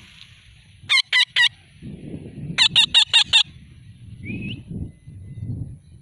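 Alexandrine parakeet giving loud, harsh screeching calls: three about a second in, then a quick run of about six around the middle.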